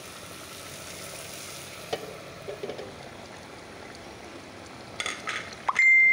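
Curry cooking in an aluminium pot with a steady hiss, a metal spatula clinking against the pot a few times. Near the end comes a loud metal clang that keeps ringing at one pitch.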